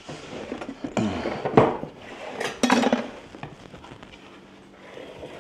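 Stainless steel mixing bowls being handled and set down on a wooden cutting board, a few clattering knocks and scrapes, the loudest about a second and a half in.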